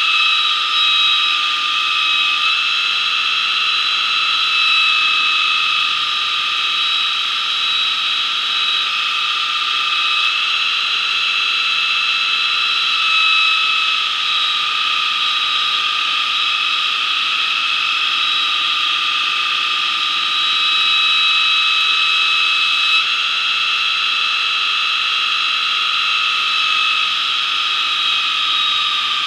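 Belt grinder running with a steel knife blade pressed against its abrasive belt: a loud, steady grinding hiss with a high whine.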